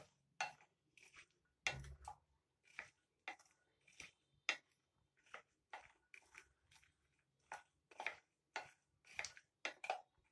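Wooden spatula stirring boiled brown chickpeas coated in chutney in a glass bowl: a faint, regular run of short stirring strokes, about two a second.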